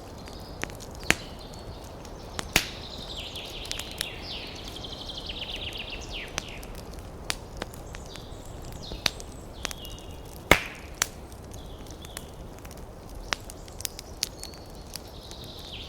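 Wood fire crackling, with irregular sharp pops over a steady hiss; the loudest pop comes about ten and a half seconds in. High chirping calls come and go, mostly a few seconds in and again near the end.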